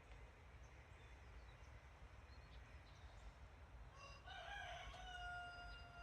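A rooster crowing faintly, once, starting about four seconds in: a rough opening followed by a long held final note. Underneath is a faint low hum.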